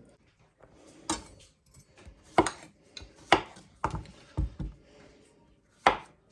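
Knife knocking against a cutting board during vegetable prep: about seven sharp, irregularly spaced knocks.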